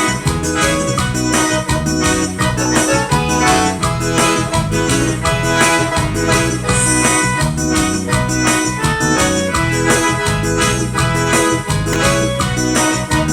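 Forró band playing an instrumental passage of the song, a sustained keyboard-like melody over a steady, quick percussion beat.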